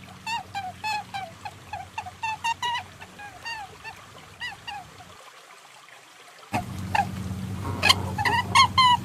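Series of short, squeaky, bird-like calls, each a brief arching note, several a second, over a steady low hum. They thin out and stop briefly past the middle, then resume louder and denser about six and a half seconds in. The recording is offered as a perentie 'calling sound', a lure for trapping the lizard.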